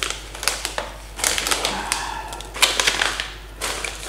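Plastic snack bag of pistachios being torn open and handled, crinkling and crackling in several irregular bursts.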